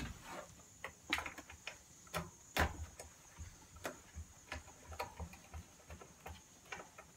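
Irregular clicks and light knocks of hand tools working on a vintage Gravely walk-behind tractor, roughly two a second, the loudest about a second and two and a half seconds in.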